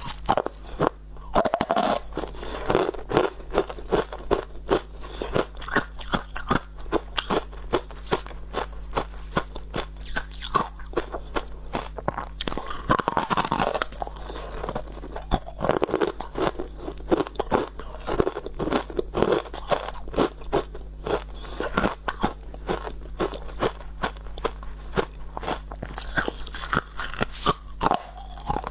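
Frosty chunks of ice being bitten and chewed close to a clip-on microphone: dense, continuous crunching with many sharp crackles.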